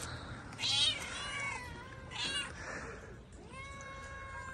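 Several stray cats meowing for food: a few short meows in the first two and a half seconds, then one long, steady meow near the end.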